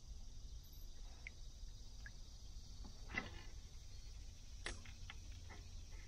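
Quiet outdoor ambience: a steady low rumble with a few faint short chirps, and two sharp knocks, the first a little past halfway and the second about a second and a half later, from fishing rod and reel gear being handled in a plastic kayak.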